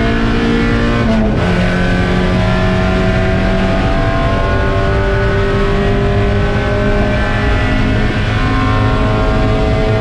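Spec Miata race car's four-cylinder engine pulling hard under full throttle. It shifts up once about a second in, its pitch dropping, then climbs steadily through the next gear.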